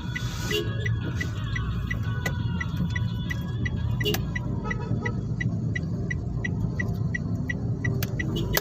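Road traffic at a signalised intersection: the low rumble of engines, with a sharp high beep or tick repeating evenly about three times a second.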